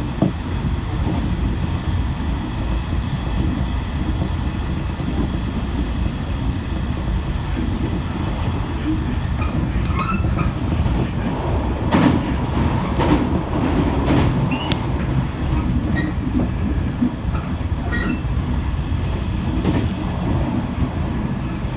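415 series electric train running along the line, a steady rumble of wheels and motors heard from inside the leading car, with scattered clicks and knocks of the wheels passing over rail joints in the middle of the run.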